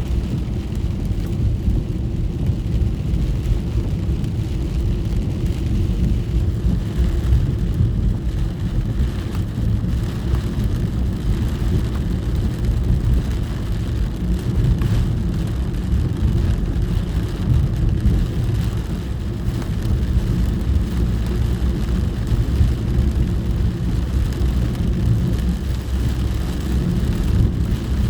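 Steady low rumble of a car driving in the rain, heard from inside the cabin, with a fainter hiss of rain and wet road over it.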